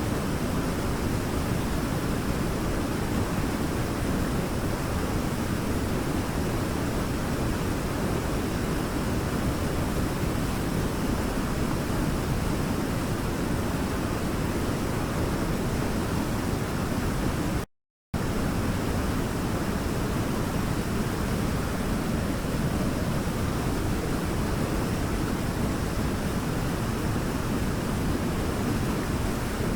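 Waterfall rushing steadily, an even roar of falling water with most of its weight low down. It cuts out to silence for about half a second a little past the middle, then resumes unchanged.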